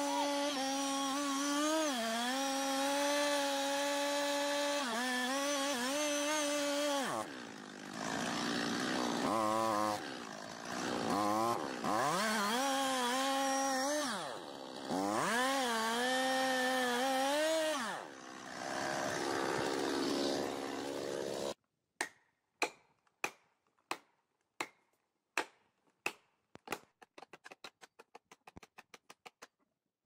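Stihl chainsaw running at high revs in a cut through a thick trunk, its revs dipping and climbing back several times. About 21 seconds in it cuts off, and a series of sharp knocks follows, coming faster toward the end.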